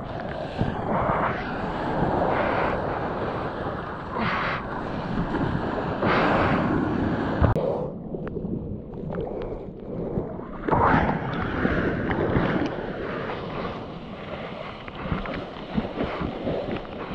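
Surf and moving water rushing and splashing against a surfer's point-of-view camera held at the water surface, with wind buffeting the microphone. About halfway through, the sound goes dull for a few seconds as the camera dips into the water, then a loud splash of spray comes back.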